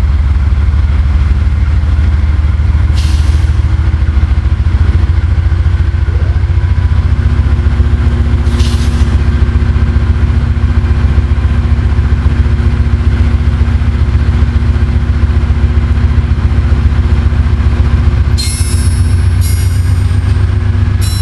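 A CSX GE AC4400CW diesel-electric locomotive's engine idling with a loud, steady low rumble, with two short hisses of air about three and eight seconds in. Near the end, short pulses of high-pitched ringing come in over the rumble.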